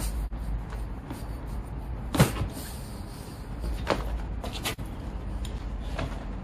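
Motorcycle rear tyre being trodden on to break its beads loose from a spoked rim: one sharp thump about two seconds in, then a few lighter knocks as the beads come away.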